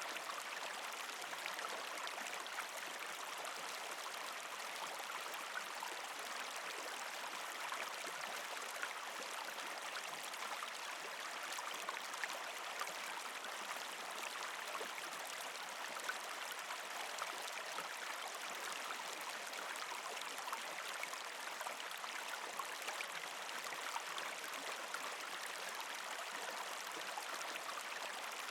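Partially frozen creek flowing over rocks: a steady rush of water, flecked with small trickling sounds, unchanging throughout.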